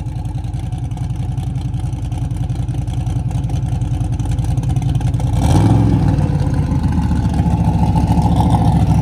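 Turbocharged race car engine running with a steady drone that slowly builds, then, about five and a half seconds in, opens up sharply into a louder hard pull with the pitch climbing.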